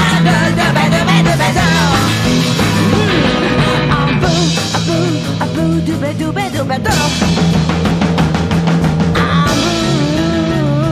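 Rock music with vocals, electric guitar, bass and drums playing at a steady, loud level.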